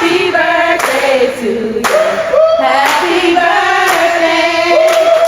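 Several people singing together in long held notes, with a few sharp claps.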